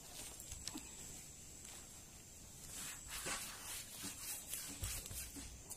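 Faint light knocks and rustling: a round wooden chopping block being set down on a plastic tarp and its top wiped clean by hand.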